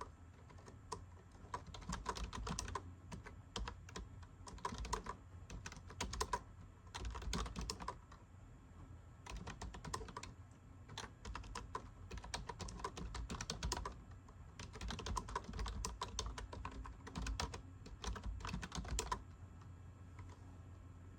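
Keys of a computer keyboard being typed on in quick runs with short pauses between them. The typing stops about two seconds before the end.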